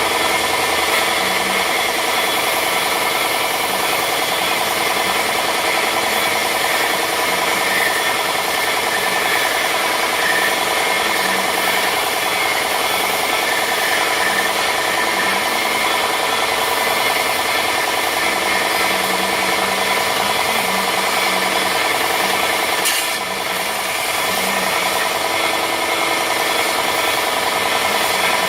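Electric sander running steadily as it sands the edges of a wooden paddle, with one brief dip in level late on.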